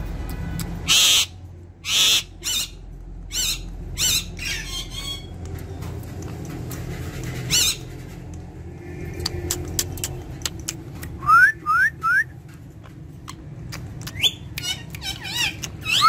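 Indian ringneck parakeet calling: a run of loud, harsh squawks in the first few seconds, then three short rising whistled chirps about eleven seconds in, and more calls near the end.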